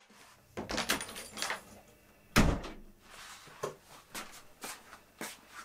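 A few knocks and rustles, then a single heavy thump about two and a half seconds in, the loudest sound. After it come light steps on a brick-paved floor, about two a second.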